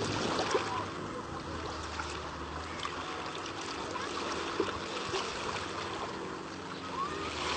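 Small sea waves sloshing and splashing around a camera held at the waterline, with a steady wash of water and little splashes throughout. A faint steady low hum runs underneath.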